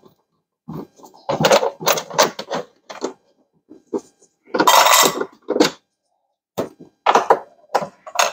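Hand tools and bolts clattering and clinking in irregular bursts as the saddlebag bolts are undone with an Allen key, with a longer rustling scrape about five seconds in. Near the end, metal tools clink in a tool tray.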